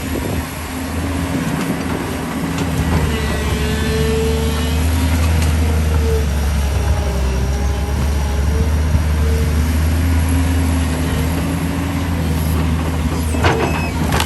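Excavator's diesel engine running steadily under load, with a wavering whine that comes and goes over it. A sharp knock comes about a second before the end.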